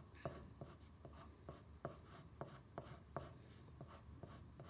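Graphite pencil shading on paper: faint, quick scratching strokes, about three a second.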